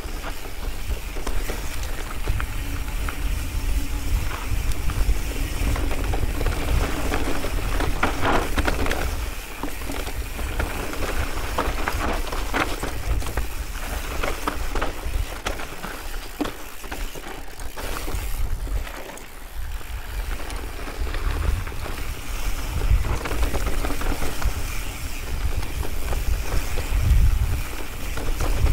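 Mountain bike rolling down a rocky trail: tyres and frame rattling and crackling over loose rock, with wind buffeting the microphone as a steady low rumble.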